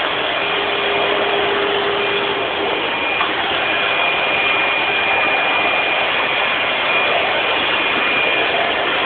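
Vacuum cleaner running steadily: an even rushing noise with a thin high whine over it.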